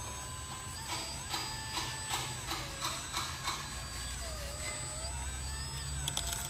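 Electric motors and gears of a remote-controlled toy excavator whirring as it swings and works its arm, the motor whine sliding up and down in pitch over a low hum. A run of sharp clicks, about two to three a second, comes in the first half.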